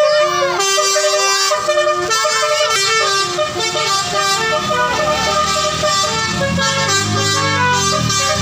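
Basuri musical vehicle horn playing a melody in a run of steady, stepped notes. A deeper sound rises and falls beneath it in the second half.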